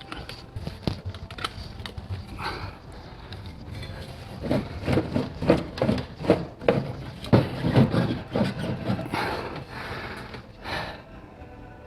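Irregular knocks and clatter of hands and tools working on metal car parts, with a run of rapid, louder knocks through the middle.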